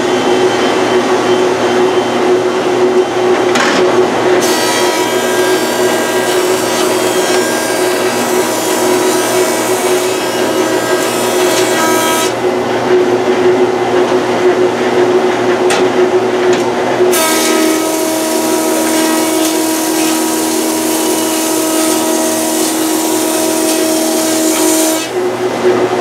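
Rikon 12-210H jointer/planer with a helical cutterhead running with its dust collector, planing a board twice: each pass is a cut of about eight seconds, starting about four seconds in and again a little past halfway. The infeed rollers pull the board through steadily, with no popping from the roller chain, which has just been re-tensioned at its idler.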